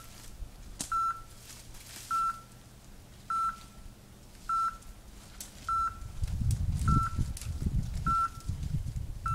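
An electronic beep at one steady pitch repeats about once every second and a bit, around eight times. From about six seconds in, a low rumbling noise grows louder beneath the beeps.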